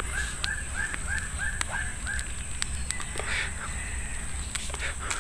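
A bird calling a rapid run of about nine short, identical notes, roughly three a second, that stops a little over two seconds in; a few faint clicks follow.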